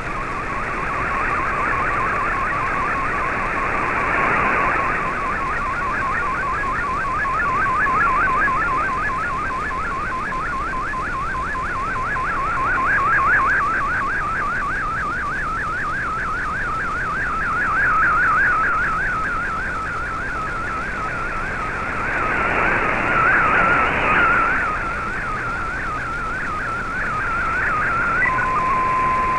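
MFSK64 picture transmission received off a shortwave broadcast: a fast warbling data tone over static, sweeping up and down many times a second as the image is sent line by line. Near the end the warble gives way to a short stepped run of tones and then a steady single tone.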